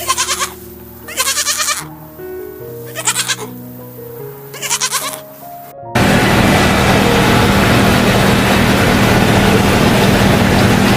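Four wavering bleats about a second and a half apart, over background music with a simple melody. About six seconds in, this cuts off suddenly to a loud, steady noise with a low hum.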